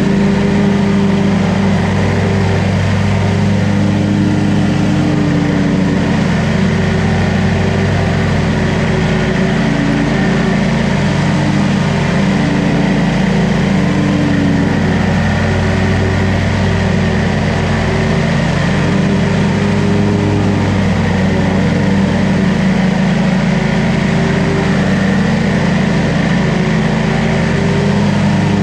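Kohler engine of a stand-on zero-turn mower running steadily at mowing throttle with the cutting deck engaged, its note wavering slightly up and down as the mower moves and turns.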